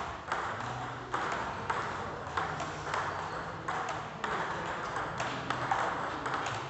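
Table tennis balls being hit back and forth, a series of sharp, irregular clicks of ball on paddle and tabletop, over a steady background hiss.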